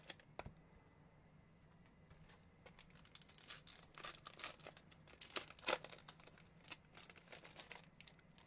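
Trading-card pack wrappers crinkling and cards being flicked through by hand. The sound is quiet at first, then a quick run of short crinkles and clicks begins a couple of seconds in.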